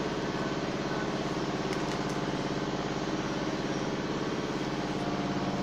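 An engine idling steadily, an even low drone that does not change, with a couple of faint clicks about two seconds in.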